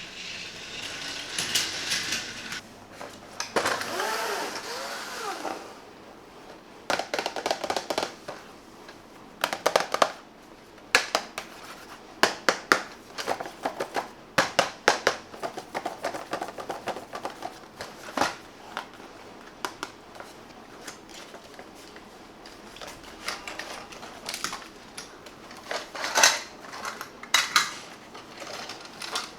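Small plastic toys being handled, with many sharp clicks and clacks. Before that comes a brief steady whirr, like a small toy motor.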